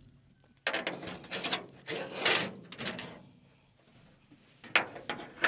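Metal hitching gear rattling and clicking for a couple of seconds while a load is being hooked up to a side-by-side, then one sharp click near the end.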